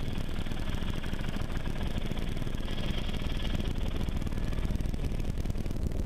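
Helicopter turbine and rotor running steadily, heard from inside the cabin at the open side door.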